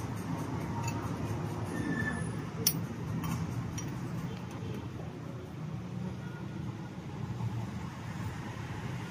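A steel spanner clinks once against the metal fuel-line fitting of a CAV diesel injection pump, with faint ticks of the tool working the nut, over a steady low rumble.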